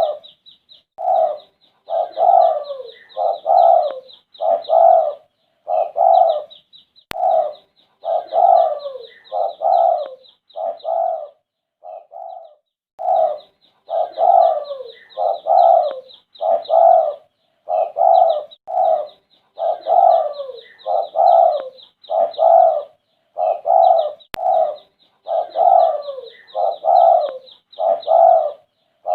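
Spotted dove (derkuku) cooing on and on, one coo about every second, with a short break about twelve seconds in. A fast, high chirping ticks along above the coos.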